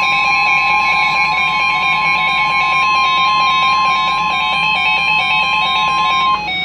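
NOAA Weather Radio warning alarm tone: one steady, loud, single-pitched tone near 1 kHz, over a steady hiss and hum, that cuts off suddenly near the end. It announces that a warning, here a severe thunderstorm warning, is about to be read.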